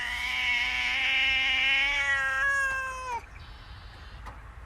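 A cat giving one long drawn-out meow, steady in pitch for about three seconds and sagging as it ends.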